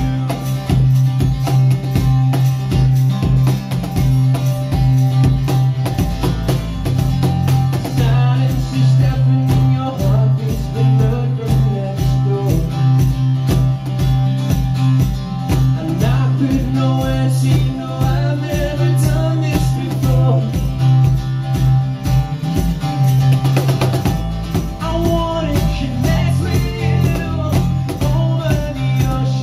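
Live acoustic band: strummed acoustic guitar, bass guitar and a cajon keeping a steady beat, with a lead vocal singing from about eight seconds in.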